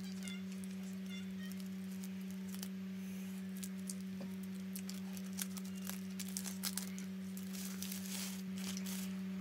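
A dried leaf wrapper being peeled and torn off a glutinous rice snack, with crisp crinkling and crackling that grows busier in the second half, and a plastic bag rustling. A steady low hum lies under it.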